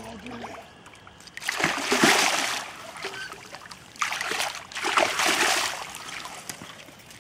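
Striped bass splashing at the surface as it is brought in to the bank. It comes in two bursts of splashing, the first about a second and a half in and the second about four seconds in.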